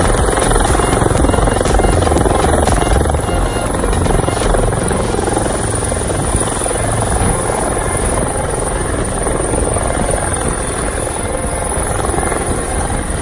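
Helicopter hovering close overhead, its turbine engine and rotor running loudly and steadily, with a thin steady high whine above the rotor noise.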